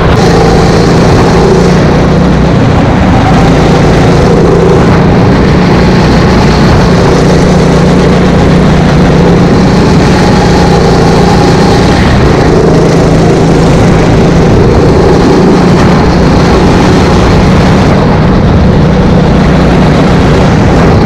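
Go-kart engine running hard, heard from the driver's seat, loud and constant. Its pitch dips several times as the throttle eases for corners and then climbs again.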